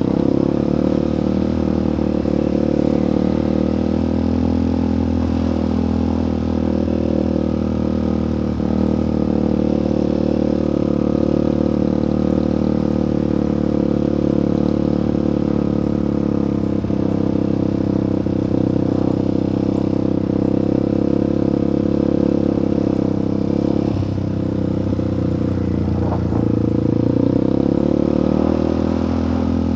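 Off-road vehicle engine running steadily at low speed while riding, heard up close, easing off slightly and picking up again near the end.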